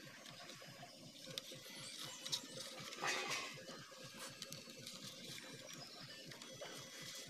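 Thin bamboo strips rustling and clicking against each other as they are woven by hand into a shrimp trap, with a sharp click a little over two seconds in and a louder crackle about three seconds in.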